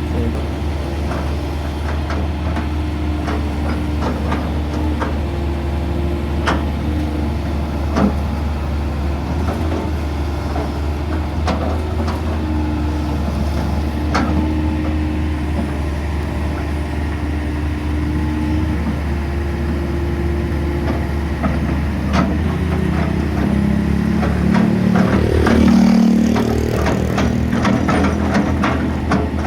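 Hitachi hydraulic excavator running, a steady diesel drone with a hydraulic whine, scattered clanks and knocks from the machine working. Near the end the engine note rises and shifts in pitch for a few seconds.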